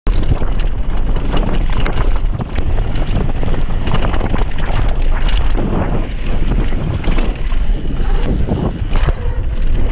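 Wind buffeting the microphone of a mountain bike's ride-along camera at speed, with the tyres crunching over loose gravel and dirt and the bike rattling in a stream of small knocks and clicks.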